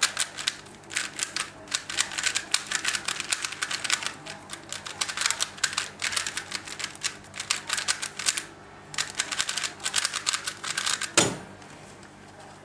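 A plastic 3x3 Rubik's cube being turned fast during a speedsolve: a dense run of clicking layer turns with a short pause about two-thirds of the way through. It ends with one loud thump as the hands come down on the speedcubing timer to stop the solve.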